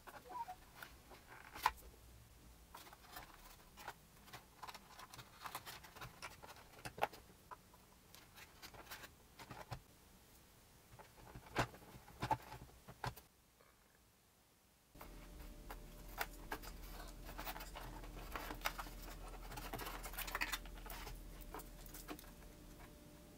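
Hands working small plastic parts and wires inside a foamboard model airplane fuselage: scattered light clicks, taps and scratches. About two-thirds of the way in a faint steady hum comes in under the handling.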